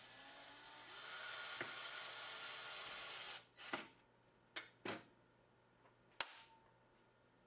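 Cordless drill/driver running for about three seconds as it drives the screws that hold a router table's insert plate, its pitch rising as it starts. Then four short sharp clicks.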